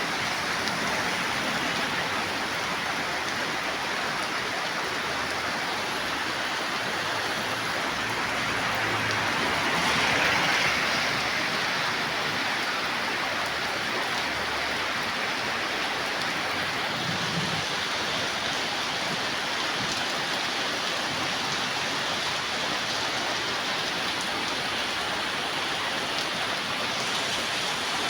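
Rain falling steadily, a dense even hiss that swells briefly about ten seconds in.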